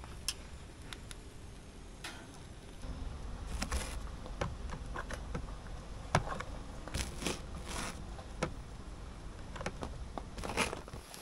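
Campfire crackling, with scattered irregular pops and clicks over a low rumble.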